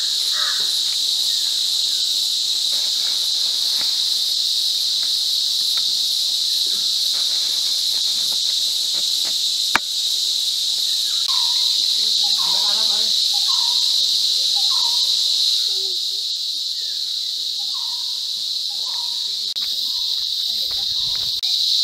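Loud, steady high-pitched drone of an insect chorus, with a few short falling chirps in the middle and a single sharp click about ten seconds in.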